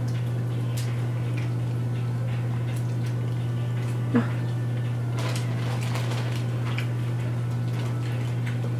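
Faint wet squishing and small clicks of shellfish shells being cracked and picked apart by hand, with one sharper click about four seconds in. A steady low hum sits under it throughout.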